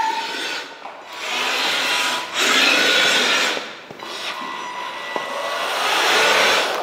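Electric drive motors and gearing of a KingKang RC amphibious big-foot truck whirring, with its large tyres rolling on a hard tile floor, in three main surges as it is driven around.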